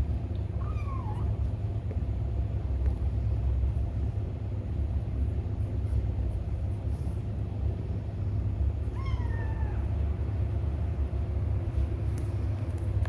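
A kitten mews twice, short high calls falling in pitch, about half a second in and again about nine seconds in, over a steady low rumble.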